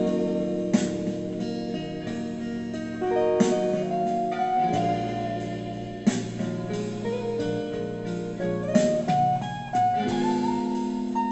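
Electric guitar playing an improvised lead of mostly held notes, some sliding between pitches, over a recorded backing track.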